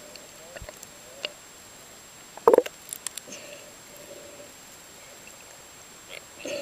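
Dolphins vocalizing underwater: faint short whistles with scattered clicks, and one louder brief burst of sound about two and a half seconds in.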